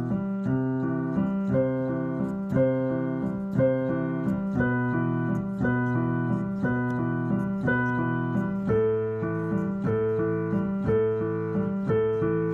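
Instrumental music with no voice: a keyboard accompaniment of repeated chords, struck about twice a second at a steady, even pace.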